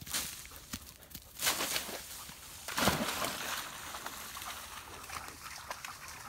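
A black Labrador and a border collie jumping into a shallow creek after a thrown stick: two loud splashes about a second and a half apart, the second the louder, then sloshing as the dogs wade out and scramble up the far bank.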